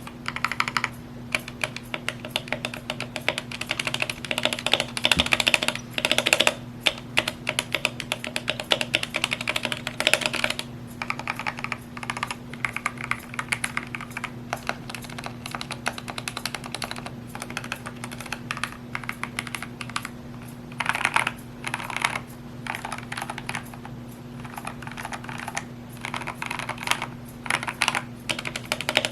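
Typing on a GMMK 2 65% mechanical keyboard with lubed Gateron Red linear switches and dye-sublimated keycaps: continuous keystroke clacks in quick runs with brief lulls, over a steady low hum.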